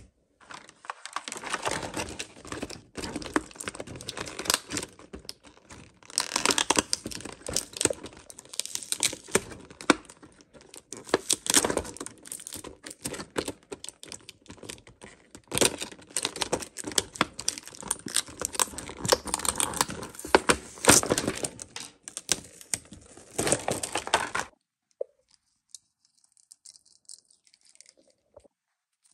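Toy packaging being torn open and crinkled by hand: a dense run of tearing and crackling with sharp snaps, stopping suddenly about 24 seconds in.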